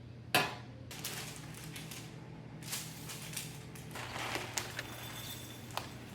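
Soft kitchen handling sounds while making granola: a sharp knock about half a second in, then faint rustling and scraping with a few light clicks over a low steady hum.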